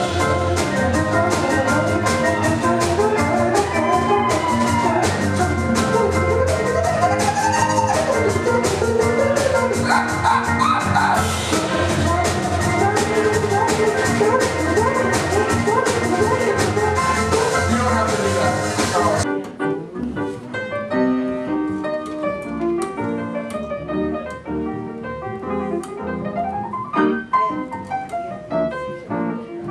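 A live band playing with drums and keyboard. About two-thirds of the way through, the drums and the rest of the band drop out, leaving an organ playing chords alone, more quietly.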